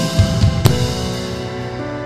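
Live worship band music: a few drum-kit hits, ending on a final stroke under a second in, then held chords ringing on as the band settles into a slower song.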